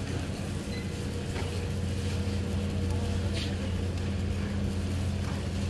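Steady low machinery hum with a couple of faint clicks: the background drone of a store's building equipment.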